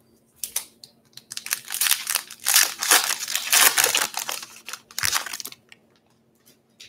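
Foil wrapper of a Topps Pro Debut baseball card pack being torn open by hand: a dense run of crinkling and tearing that stops after about five seconds.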